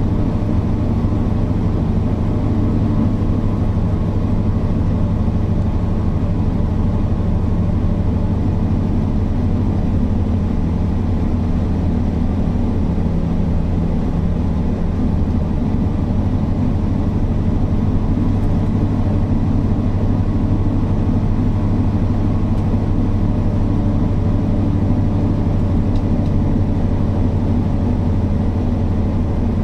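Mercedes-Benz O408 bus's rear-mounted inline-six diesel engine running steadily, a deep, even drone with no marked revving.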